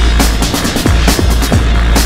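Music with a heavy, steady bass and a fast, driving drum beat: kick drums and sharp cymbal hits.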